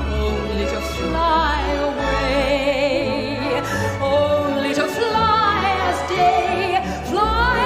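Orchestra playing a slow, lush passage led by strings with a wide vibrato, the notes gliding and changing throughout.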